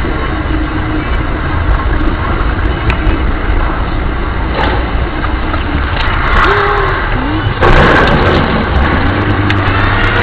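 Road and engine noise inside a moving car, with a loud burst of crashing noise about eight seconds in as a cattle truck overturns ahead.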